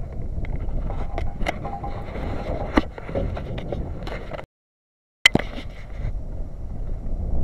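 Wind rumbling on the microphone, with scattered clicks and scrapes of close handling. The sound cuts out completely for under a second about four and a half seconds in and comes back with a sharp click.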